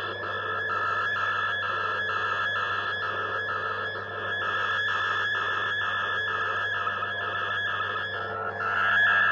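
Shortwave digital-mode picture transmission from a VOA Radiogram broadcast, heard through a TRIO 9R-59DS tube receiver: a steady warbling tone that pulses about three times a second over a steady low hum, growing louder and a little higher near the end.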